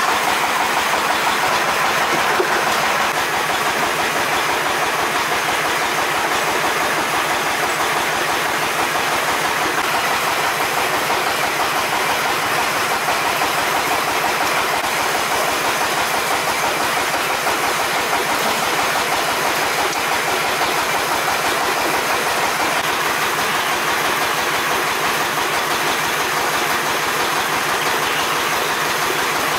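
Cambodian donut rings deep-frying in a wok of hot oil: a steady sizzling.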